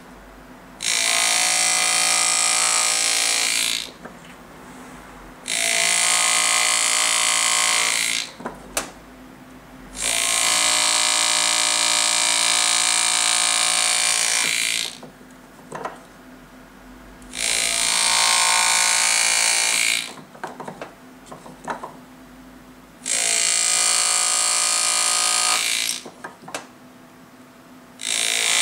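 Pneumatic engraving graver buzzing in repeated bursts of a few seconds, about five times, as it cuts gold. Faint clicks of the graver on the metal fall in the quieter gaps between bursts.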